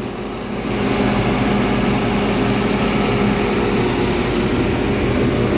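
Farm engines running steadily over a continuous rushing hiss, as a combine unloads shelled corn into a grain wagon.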